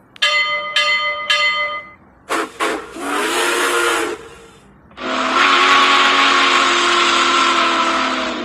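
Train whistle blowing: three short toots, then a blast of about two seconds, then a long blast of about three and a half seconds. The last two carry heavy hiss along with their tones.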